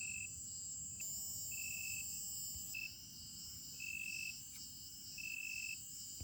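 Insects chirping: a steady high-pitched insect drone, with a cricket-like trill repeating in half-second bursts about every second and a half.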